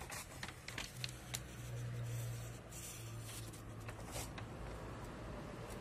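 Printout paper being handled, a finger rubbing and tapping on the sheet: scattered clicks and short rustles over a steady low hum.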